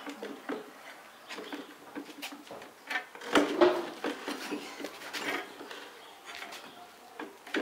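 Irregular metallic clicks, knocks and scrapes as a long steel bar is worked against a D115 tractor engine block, with a louder clatter about three and a half seconds in.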